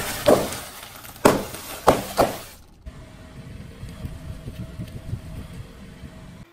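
Car tyre rolling over sealed plastic snack bags, which burst with four sharp pops and crunches over the first two and a half seconds. After a cut, the tyre slowly presses into a crumbly green block, giving a quieter, dense crackling.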